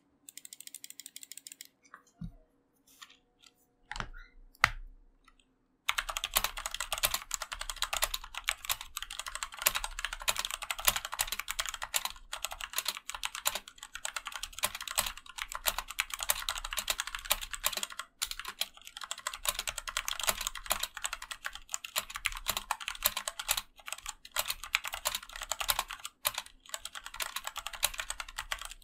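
Rapid, continuous typing on an AJAZZ AK33 75% mechanical keyboard with Cherry MX-clone black switches, ABS keycaps and an aluminium plate. It starts about six seconds in, after a few scattered clicks.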